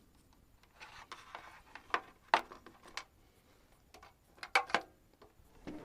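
Plastic MC4 solar connectors and cable being handled: rustling, then a few sharp clicks and knocks.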